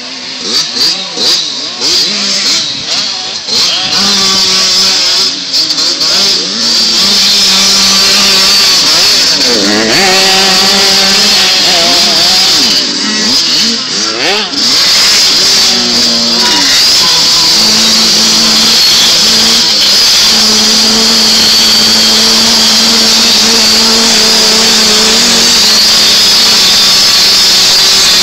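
Small 85cc two-stroke dirt bike engines revving hard in deep mud, the pitch swooping up and down several times and then held at steady high revs through the second half as a bogged bike spins its rear wheel.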